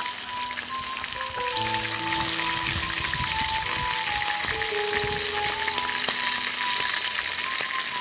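Food pieces deep-frying in hot oil in a shallow frying pan: a dense, steady sizzle and crackle of bubbling oil that grows louder about a second and a half in as more pieces go into the pan. Background music plays along.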